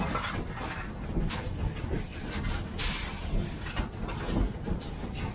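Steam locomotive running, heard from inside the cab: a steady low rumble and rattle, with bursts of hiss about a second in and again about three seconds in, the second lasting about a second.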